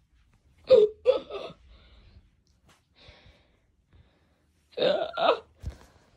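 A child's short wordless vocal noises, in two bursts: one about a second in and one near the end, each a quick pair of falling, throaty sounds.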